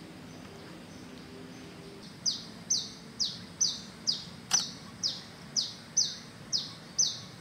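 A bird chirping: a short, high note that falls in pitch, repeated evenly about twice a second, starting about two seconds in. A single sharp click comes about halfway through.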